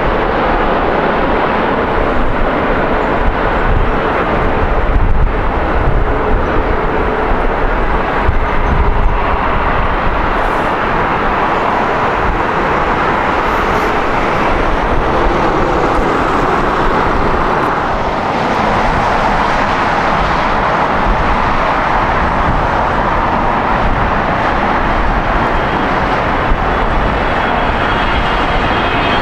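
Jet airliner engines, a loud steady rush with faint whining tones coming and going in it.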